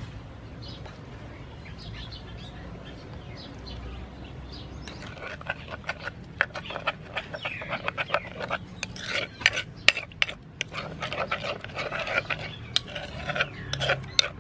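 A metal spoon stirring a thin chili sauce in a wooden mortar. From about five seconds in come quick, irregular clicks and scrapes of the spoon against the mortar.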